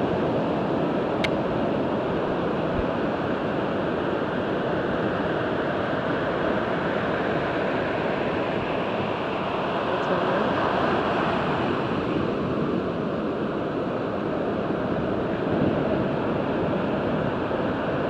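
Ocean surf breaking and washing onto the beach, a steady wash of water noise.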